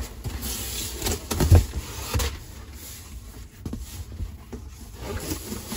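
Cardboard box being handled and pulled open: rubbing and scraping of cardboard with several knocks, the loudest about a second and a half in.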